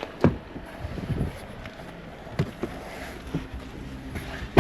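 A few scattered thumps, then a Jeep's car door slamming shut with a loud thud at the very end.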